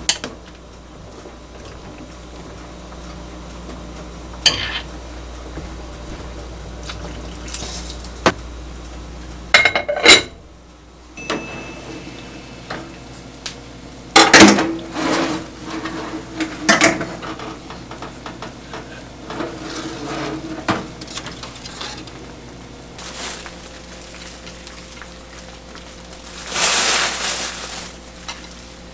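Dishes and cutlery being handled: scattered knocks and clinks of tableware, several of them sharp, with a longer scraping stretch near the end.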